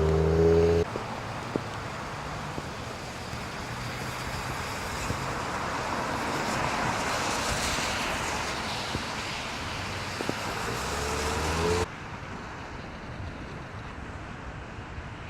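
Steady rushing noise of rain and traffic on wet roads, with a vehicle engine running briefly at the start and again shortly before the sound drops suddenly to a quieter hiss.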